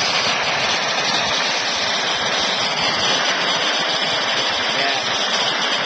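Steady rushing hiss of a torch flame heating a dented steel fuel tank to push the dent out, even and unbroken throughout.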